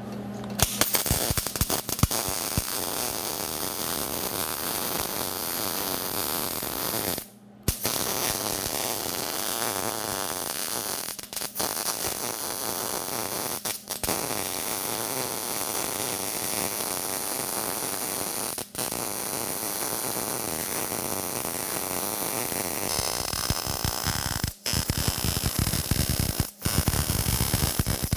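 MIG welder arc-welding a steel tab onto a steel shroud, a steady crackling hiss of the arc. It stops briefly several times where the trigger is let off between welds.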